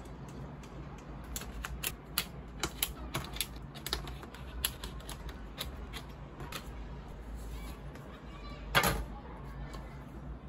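Sharp metal clicks and taps from a poster frame's metal retaining clips and a screwdriver against the hardboard backing, several in quick succession between about one and seven seconds in. About nine seconds in comes one louder, slightly longer knock.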